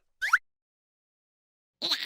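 Cartoon sound effects: a brief rising squeak about a quarter second in, silence for over a second, then a short wavering cartoon-character vocal sound near the end.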